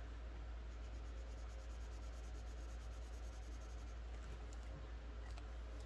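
Faint scratching of a pen or marker colouring in numbered hexagons on a savings challenge card, over a steady low hum.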